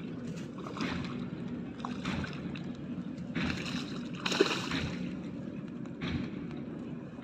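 A hooked fish splashing and thrashing at the surface beside the bank as it is brought to the landing net, in short repeated splashes, the loudest about four and a half seconds in.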